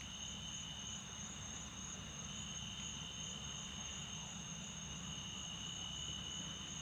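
Night insects trilling in a steady, unbroken high-pitched chorus, with a faint low hum underneath.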